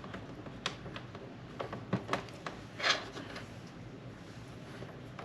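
Light clicks, taps and rattles of small plastic and metal parts being handled and fitted back into a cassette recorder's tape mechanism, with a brief scrape about three seconds in.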